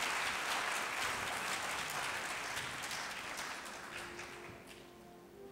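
Audience applauding, the clapping dying away about four to five seconds in. Faint background music starts near the end.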